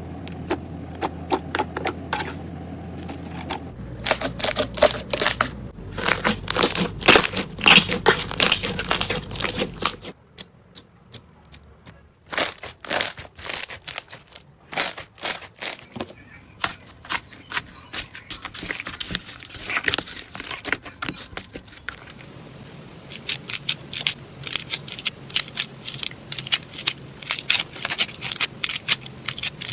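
Slime being squeezed and poked by hand, giving many sharp, irregular crackling pops and clicks. The background changes several times as one clip gives way to the next.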